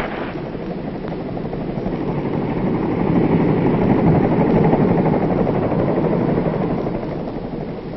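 Tandem-rotor Navy H-46 Sea Knight helicopter flying by: a steady rotor and turbine rumble that grows louder to a peak about halfway through, then fades.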